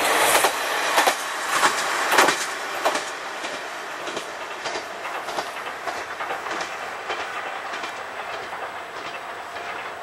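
Kanto Railway KiHa 2400-series diesel railcar running past and away. Wheels clack over rail joints, loudest in the first few seconds, and the running noise then fades steadily as it recedes.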